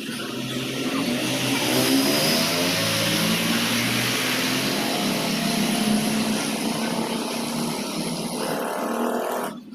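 Machinery running steadily with a hiss and a pitch that drifts up and down, cut off suddenly at the end.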